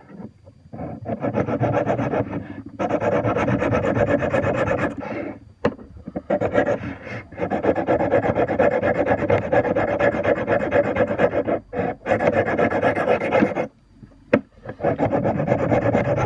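A knife blade stroked back and forth over a Smith's TRI-6 Arkansas Tri-Hone sharpening stone, grinding metal off a dull edge. It makes a steady gritty rasp in long runs, with a few short pauses.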